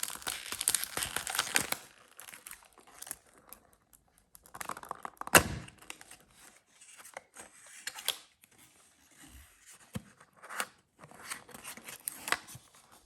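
Foil wrapping on a perfume box tearing and crinkling, dense for the first two seconds, then scattered crinkles and taps as the box is handled, with one sharp click about five seconds in.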